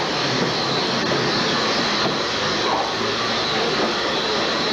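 Hard plastic wheels of two children's Big Wheel-style tricycles rolling over a concrete garage floor: a steady, loud, rough rumble.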